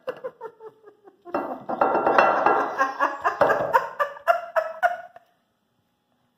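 An upturned bowl being rattled and knocked against a ceramic plate to shake a tightly pressed salad loose. It starts with a few separate knocks, then runs into about four seconds of fast clinking and clattering, some strikes ringing, and stops abruptly about a second before the end.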